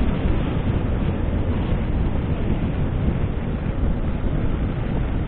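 Steady wind rumble on the microphone of a moving motorcycle, with road and engine noise underneath.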